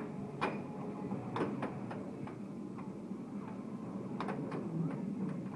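Air hockey puck and mallets clacking: about ten sharp, irregular knocks as the puck is struck and rebounds off the table's rails, bunched in quick runs, over a steady low hum.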